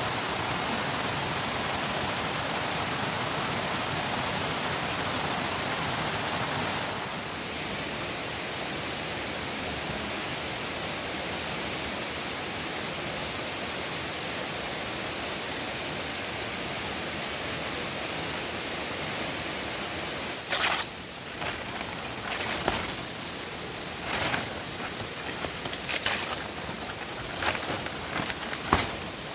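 Steady rushing noise that drops slightly about seven seconds in, with a faint steady high tone over it; from about two-thirds of the way through, a run of sharp knocks and clatters.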